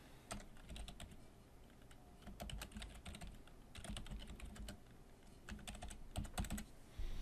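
Quiet typing on a computer keyboard: keystrokes come in short, irregular runs.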